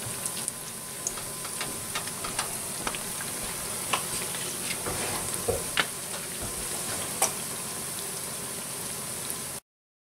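Breaded squirrel patty frying in shallow oil in a skillet: a steady sizzle with scattered pops and crackles, cutting off suddenly near the end.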